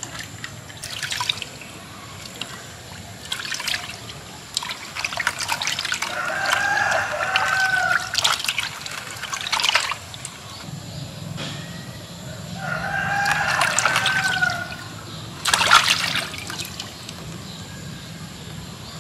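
Hands splashing and sloshing water while washing live eels in a clay pot, in short repeated bursts. A rooster crows twice, about six seconds in and again about thirteen seconds in, each crow rising and then falling over about two seconds.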